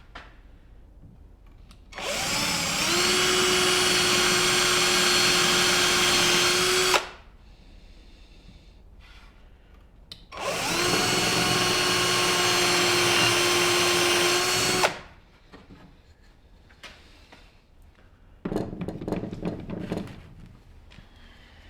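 Electric drill run twice for about five seconds each, spinning up to speed and then running steadily before stopping. A shorter, quieter scraping noise follows near the end.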